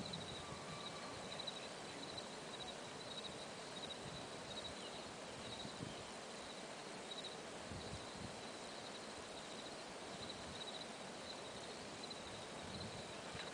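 Faint outdoor ambience: a steady soft hiss with a thin, high-pitched chirp pulsing about twice a second throughout, and a few soft low bumps.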